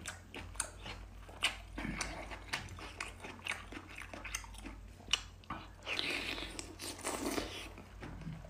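Close-mouth eating sounds of a person chewing and sucking soft brown crab meat from the shell: wet smacks and many short sharp clicks, thicker for a moment near the end.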